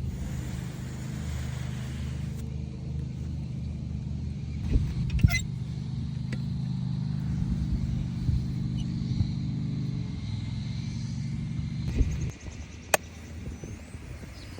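A vehicle engine running steadily at a low pitch, with a few knocks about five seconds in. The engine stops abruptly about twelve seconds in and is followed by a single sharp click.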